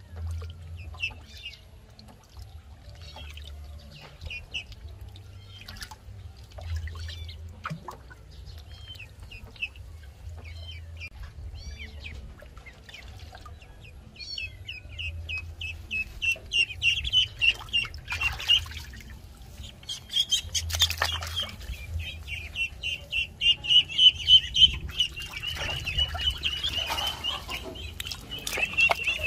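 Ducklings peeping: scattered high peeps at first, then from about halfway a fast, continuous run of loud peeps, with a few brief rustling noises among them.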